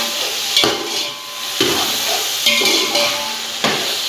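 Metal slotted spoon scraping and stirring beef chunks and tomatoes frying in a large metal pot, about one scrape a second, over a steady sizzle. The meat and tomatoes are being fried down (bhuna).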